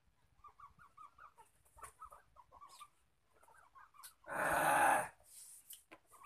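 Chickens clucking in a string of short calls, then a loud, harsh sound lasting just under a second about four seconds in.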